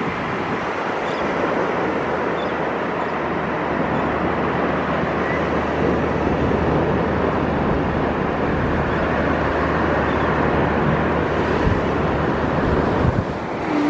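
Gulf surf washing steadily onto the beach, a continuous rushing hiss that swells slightly near the end.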